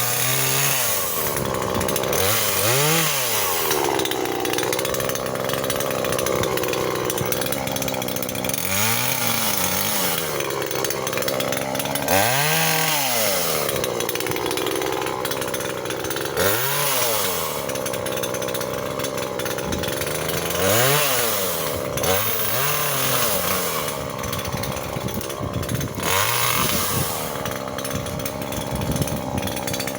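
Chainsaw cutting firewood, its engine running throughout and rising and falling in pitch every few seconds as it is revved and worked through the wood.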